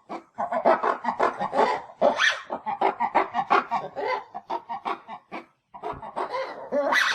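Lemur-based creature calls used as the voice of Plesiadapis: fast runs of short chattering calls, with louder, higher calls about two seconds in and near the end, and a brief break about five and a half seconds in.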